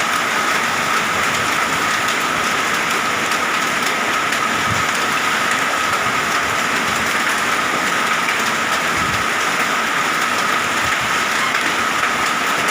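Heavy rain and hail pelting down in a summer storm with strong wind: a steady, loud downpour with scattered small ticks of hailstones striking.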